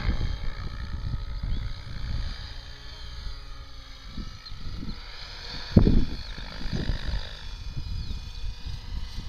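Electric Mikado Logo 600 SE RC helicopter flying overhead, its motor and rotor whine gliding up and down in pitch as it moves around. Wind buffets the microphone with low rumbling gusts, the loudest about six seconds in.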